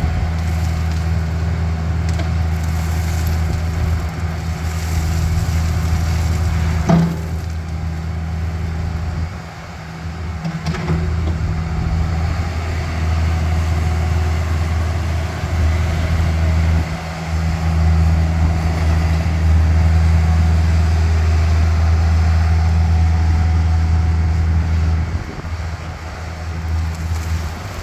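Takeuchi TB250 mini excavator's diesel engine running steadily under working load, easing off briefly a few times. A single sharp knock comes about seven seconds in.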